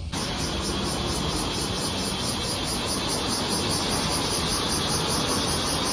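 Loud summer chorus of cicadas, a dense high buzz pulsing rapidly and evenly, over a low outdoor rumble; it starts abruptly.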